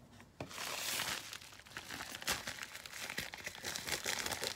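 Padded mailer envelope crinkling as it is handled and cut open with scissors, a dense crackle of small clicks starting about half a second in.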